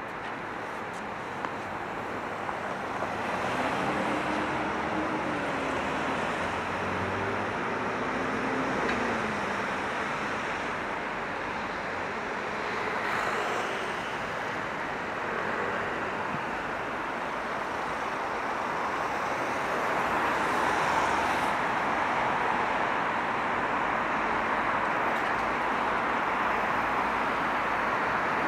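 City road traffic: cars passing in a steady wash of tyre and engine noise, with a low engine note rising and falling early on and the traffic swelling a little about twenty seconds in.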